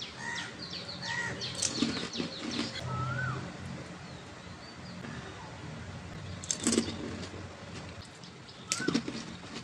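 Mouth-eating sounds of pani puri (fuchka): crisp puri shells crunching and wet chewing, in a few clusters of sharp crackles, with a few short chirp-like squeaks in between.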